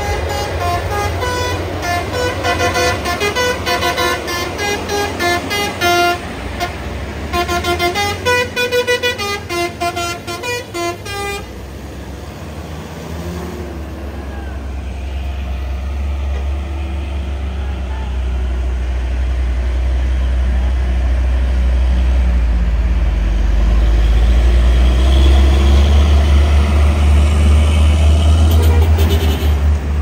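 A truck's telolet multi-tone horn playing a quick tune of short notes that change pitch for about eleven seconds. After it stops, a heavy truck's diesel engine rumbles and grows steadily louder.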